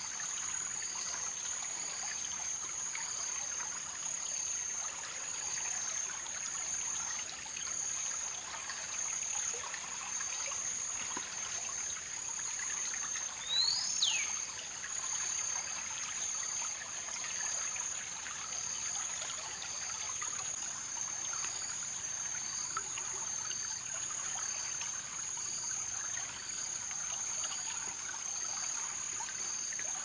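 Tropical creek ambience: a steady high insect drone with a softer chirp repeating about once a second, over trickling water. A single short bird call, a quick rising-then-falling note, comes about halfway through.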